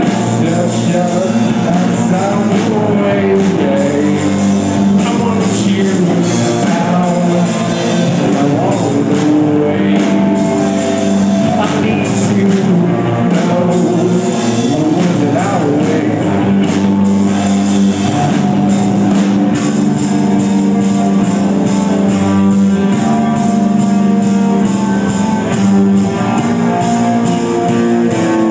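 Live rock band playing at full volume: distorted electric guitars, bass and a drum kit, with singing. The sound is loud and continuous, thin in the deep bass.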